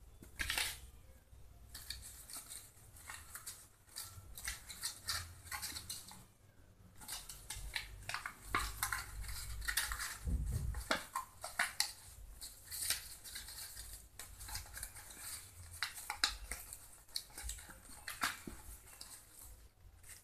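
Folded paper gift box being handled: irregular rustling, crinkling and small clicks of paper as its flaps are pressed and worked, with a dull bump about halfway through.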